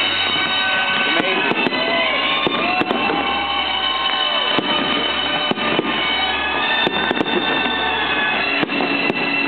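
A dense fireworks barrage: continuous crackling and popping, packed with sharp bangs. A few short whistles rise and fall in the first few seconds.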